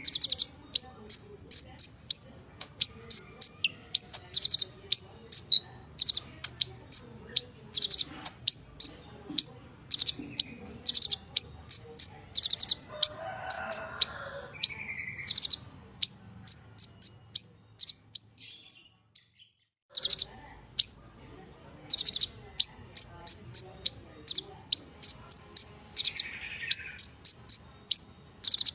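Purple-throated sunbird (kolibri ninja) singing: a fast, steady run of sharp, high-pitched chips and quick falling notes, broken by a short pause about two-thirds through.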